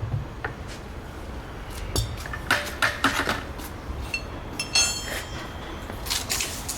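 Metal tools or parts being handled, clinking and knocking several times, with one brief metallic ring about five seconds in.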